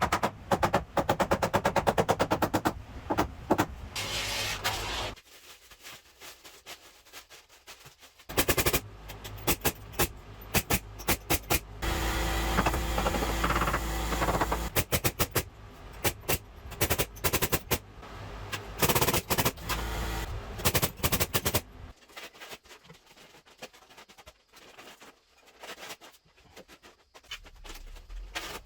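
Carpentry tool work: runs of rapid repeated impacts, with a few seconds of steady machine noise near the middle.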